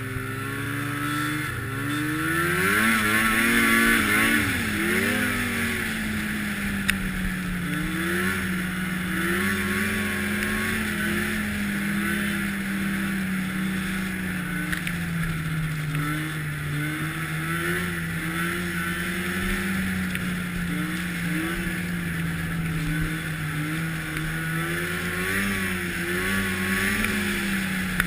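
Arctic Cat snowmobile engine running under way. Its pitch climbs over the first few seconds as it speeds up, then holds, rising and falling slightly with the throttle, over a steady hiss.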